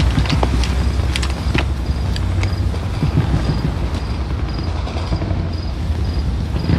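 Steady low rumble of a vehicle engine idling, with a few sharp clicks and knocks of handled gear in the first couple of seconds.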